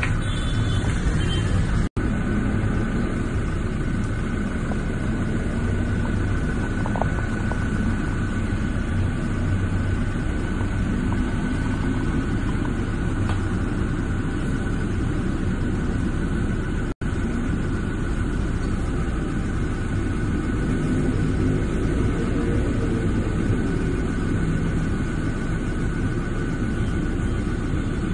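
SUV engine idling with a steady low rumble, cutting out briefly twice.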